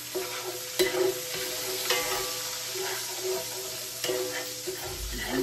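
Hot oil sizzling steadily in a skillet with seasoning added, as a utensil stirs in the pan. There are two sharp taps against the pan, about one and two seconds in.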